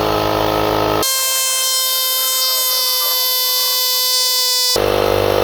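Portable jump starter's built-in air compressor running while it inflates a car tyre, a loud, steady motor buzz. About a second in it switches abruptly to a high, steady, horn-like buzz, then drops back to the low buzz near the end.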